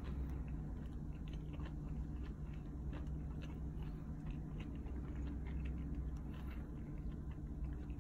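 A person chewing a mouthful of pizza close to the microphone, a run of small irregular wet mouth clicks, over a steady low hum.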